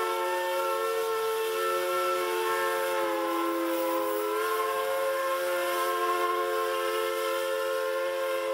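Pennsylvania Railroad three-chime steam whistle, formerly used on Grand Trunk Western 6325, blowing one long unbroken chord. Its notes shift a little in pitch a few seconds in.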